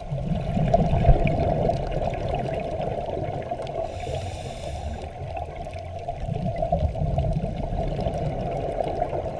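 A scuba diver breathing through a regulator, heard underwater: two bubbling exhales, with a short hissing inhale between them about four seconds in.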